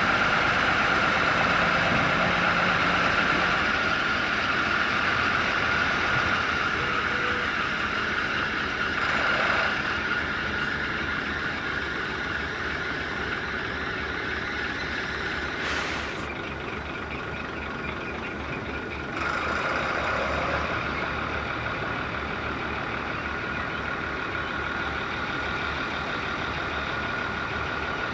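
Diesel railway engine running steadily, with a constant high-pitched whine over the engine noise.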